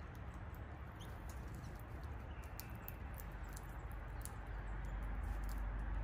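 Birds feeding at a wire-cage tube seed feeder: a scatter of faint sharp clicks and ticks of pecking at the feeder, with a faint thin bird note a few seconds in. Under it runs a low steady outdoor rumble that grows louder near the end.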